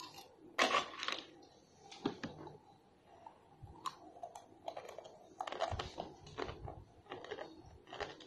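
A child biting and crunching a mouthful of Mamee dry noodle snack, with irregular crisp crunches; the loudest come about half a second in and again around five to six seconds.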